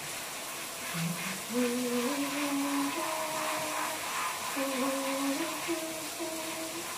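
Someone humming a slow tune, long held notes stepping up and down in pitch, starting about a second in, over a steady hiss.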